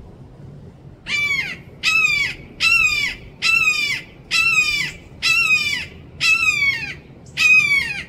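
Red-shouldered hawk giving a loud series of eight drawn-out kee-ah calls, each sliding down in pitch, about one a second, starting about a second in.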